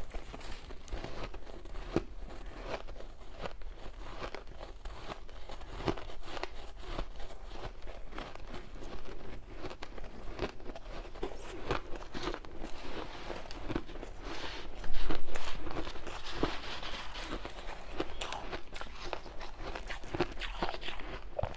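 Shaved ice being bitten, chewed and squeezed in bare hands: dense, irregular crunching and crackling throughout, with one much louder sudden crunch about fifteen seconds in.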